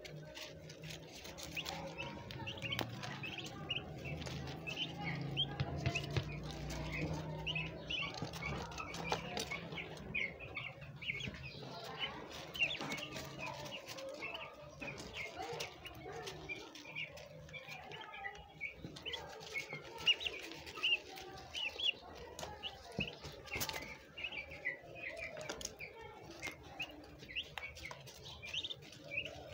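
Several turkey poults peeping constantly in short, high chirps, with occasional wing flutters and scuffling among them.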